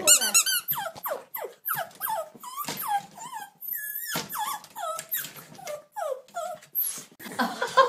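Dog whining and yelping in short, falling cries, about two a second, eager to get at a hanging Christmas stocking.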